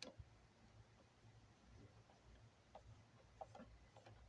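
Near silence: quiet room tone with a few faint, light clicks from handling during disassembly, mostly in the second half.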